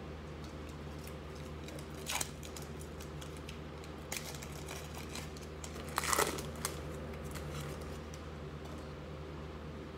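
Foil trading-card pack wrapper crinkling as it is torn open by hand: a few short crackling rustles, the loudest about six seconds in, over a steady low room hum.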